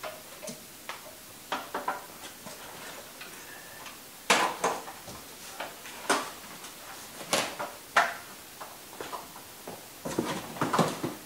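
Handling noise: irregular clicks, knocks and rustles as a power cord and its new plug are moved about, with a few sharper knocks in the middle and a quick cluster near the end.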